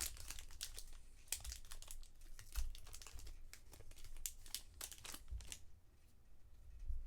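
Baseball trading card packs being handled: irregular crinkling of foil wrappers and the rustle of cards sliding against each other.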